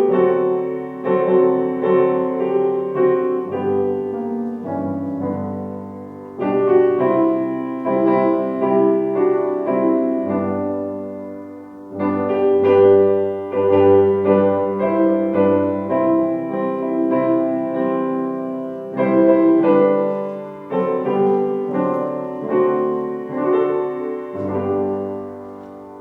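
Solo piano playing a slow hymn-like passage in chords, with each phrase struck anew and fading away.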